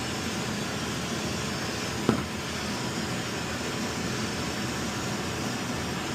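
Steady hum and whoosh of running HVAC equipment, with one sharp knock about two seconds in.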